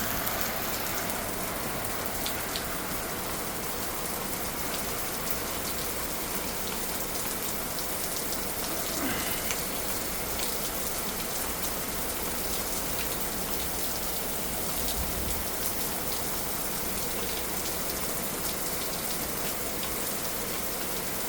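Heavy rain falling steadily, a constant hiss with the sharp ticks of single drops striking a surface.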